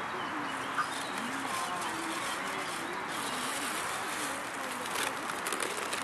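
Birds calling faintly over a steady hiss of open-air ambience, with a low wavering murmur like distant voices.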